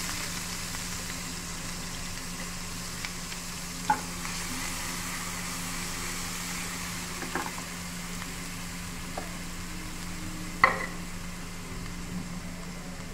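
Chopped onions sizzling in hot oil in a non-stick frying pan, stirred with a few sharp knocks against the pan, the loudest about ten and a half seconds in.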